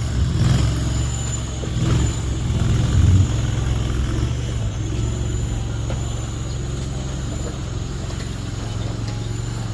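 Mini skid steer's engine running, surging in level a few times in the first three seconds, as under load or throttle changes, then settling to a steady run.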